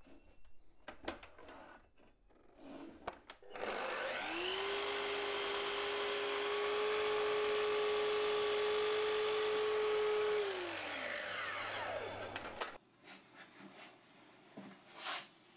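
A few light clicks of handling, then a power saw starts about three and a half seconds in, its motor whine rising quickly to a steady pitch and running for about six seconds through a cut in a workpiece held by a clamping jig. It is then switched off and its whine falls away as the blade winds down.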